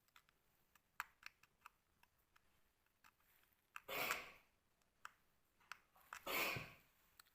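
Faint light clicks and taps of small parts being handled. They are followed by two louder half-second rasping sounds about two seconds apart.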